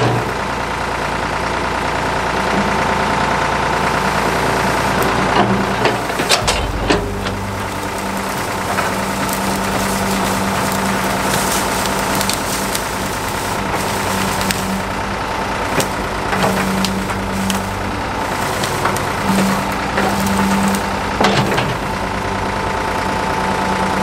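Ford 555 backhoe's engine running under hydraulic load, its note rising and falling as the boom, bucket and thumb work. Sharp cracks and snaps of brush and branches are caught in the bucket and thumb, a few at a time.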